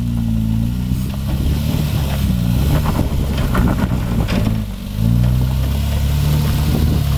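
Nissan Patrol 4WD's engine working under load as it crawls up a rocky climb, with stones knocking and crunching under the tyres. About five seconds in the engine note drops briefly, then comes back louder and steadier as the throttle opens.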